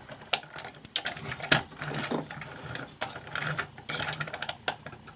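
Hard plastic parts of a vintage Tomy Karate Robot toy being handled and pressed together: a string of irregular small clicks and knocks, two sharper ones about a third of a second and a second and a half in, as the new ear pieces are fitted onto the robot's head.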